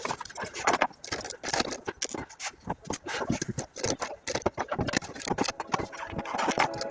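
A rapid, irregular series of clicks, knocks and scrapes on hard objects.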